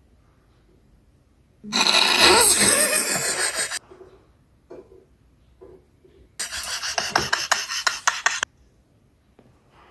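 Two harsh, noisy app sound effects, each about two seconds long and cut off abruptly: the first about two seconds in with a wavering tone inside the noise, the second near the end rattling with rapid clicks.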